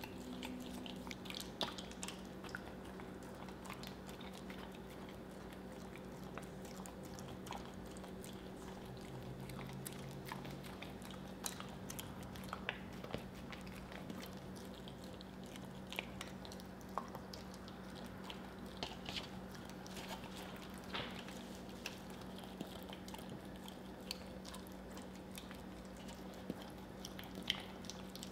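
Siberian husky licking and smacking peanut butter off a plastic spoon: short wet smacks and tongue clicks at irregular intervals, over a steady low hum.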